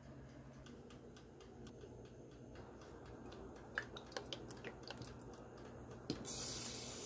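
Olive oil poured from a glass bottle into a metal pan, with a few soft clicks and glugs as it pours. A faint steady hiss starts near the end.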